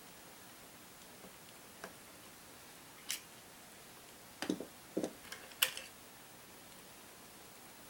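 Scattered clicks and light knocks of the parts of a Marlin 336 lever-action rifle being handled during disassembly: a faint tick about two seconds in, another about three seconds in, then a louder cluster of clicks between about four and a half and six seconds in.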